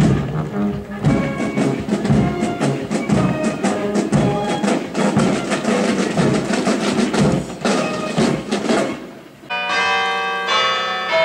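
A marching band plays with a steady drum beat and stops sharply about nine and a half seconds in. Then a large bell is struck twice, about a second apart, its tone ringing on.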